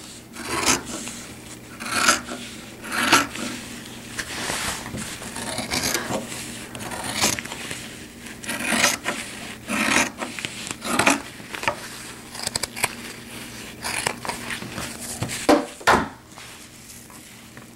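Scissors cutting through PUL fabric in a series of separate snips, roughly one every second or so, along with the crinkly rustle of the fabric being handled.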